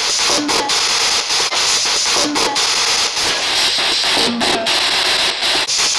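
Spirit box sweeping rapidly through radio stations: steady static cut by quick breaks as it jumps from station to station, with snatches of guitar music coming through.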